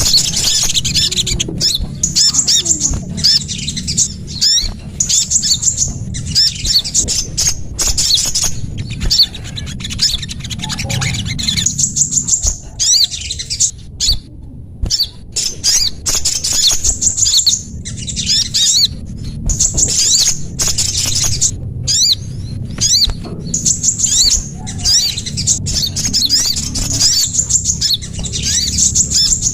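A bird lure recording of small songbirds giving rapid, high-pitched chirps and short trills, repeated over and over with brief abrupt breaks, over a low steady hum.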